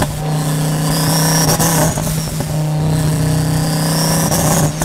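Twin-turbo Audi R8 V10 running steadily as the car drives along a wet road.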